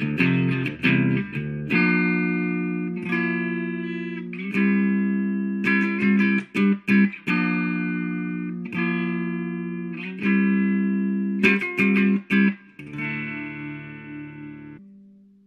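Squier Stratocaster electric guitar playing a riff of ringing chords broken by short choppy stops. Near the end a final chord is left to ring and fade away.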